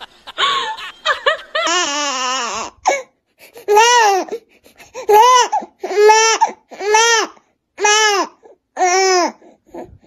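A baby crying in a run of rhythmic wails, about one a second, each rising then falling in pitch. They start a few seconds in, after a shorter drawn-out voice-like sound.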